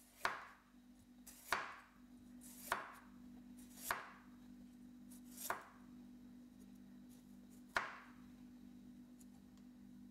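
A wide-bladed kitchen knife slicing radishes on a wooden cutting board: six sharp chops against the board, about a second apart at first, then slower.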